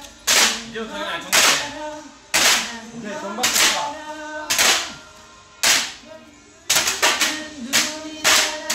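Hand-held folding paper clapper fans being swung and snapped, giving sharp loud cracks about once a second, then a quicker flurry of cracks near the end. Music plays underneath.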